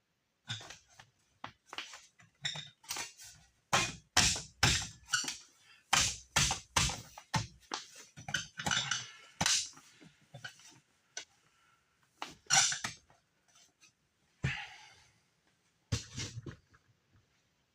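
Irregular metal knocks and clinks from hands-on fitting work, metal exhaust parts and tools being handled and knocked together.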